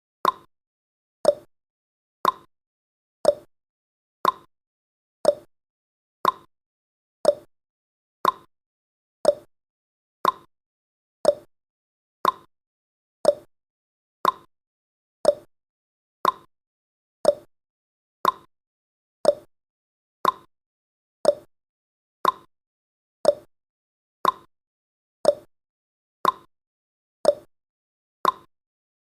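Countdown timer's tick sound effect: one short, sharp tick each second, evenly spaced, with silence between.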